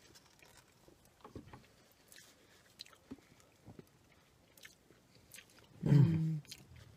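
Quiet close-up chewing of a soft Mississippi mud pie, with small scattered mouth clicks and ticks, then a short hummed "mm" about six seconds in.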